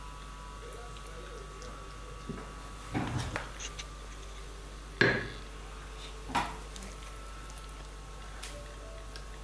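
A wooden spatula and a frying pan knocking and scraping as saucy chicken pieces are served onto an earthenware plate. There are three separate knocks; the sharpest, with a short ring, comes about five seconds in.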